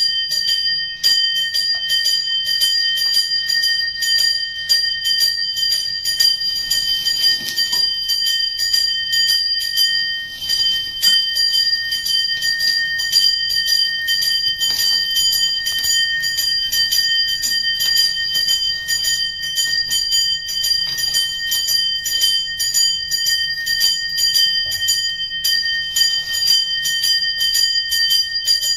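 A bell rung rapidly and without a break, its clapper striking many times a second over a steady ringing tone.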